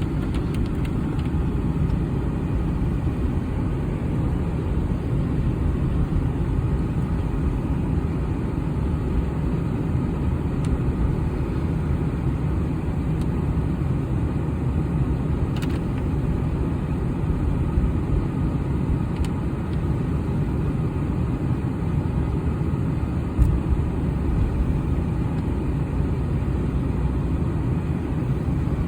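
Steady low road and engine noise inside a car cabin while driving.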